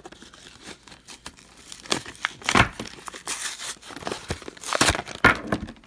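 Plastic tool packaging crinkling and tearing as it is pulled open by hand, in irregular crackling rustles that are loudest in the second half.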